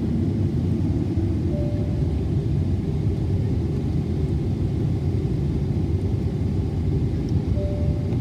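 Steady low rumble inside the cabin of a Boeing 777-300ER taxiing, with its GE90 engines and rolling gear heard through the fuselage. A faint short tone sounds twice, about a second and a half in and near the end.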